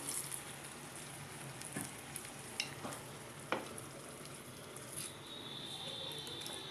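Rice and chicken in akhni stock being stirred with a wooden spatula in a nonstick pan on the heat: a low steady sizzle with a few light knocks of the spatula against the pan. A steady high thin tone comes in near the end.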